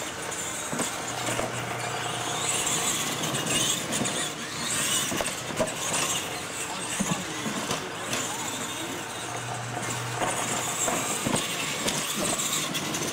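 Two radio-controlled monster trucks racing over a dirt track: their motors run and their tyres work the dirt, with a few short knocks as they hit the wooden jump ramps.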